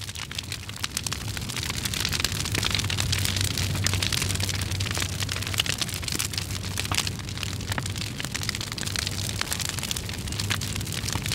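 Dense crackling with many sharp pops over a steady low hum, growing louder over the first couple of seconds.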